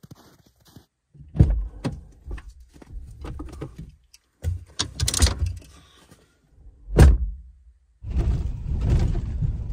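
Fishing rods and gear being loaded into the back seat of a pickup truck cab, with scattered knocks and thunks, and a loud thunk about seven seconds in. From about eight seconds a steady low rumble follows, the truck under way.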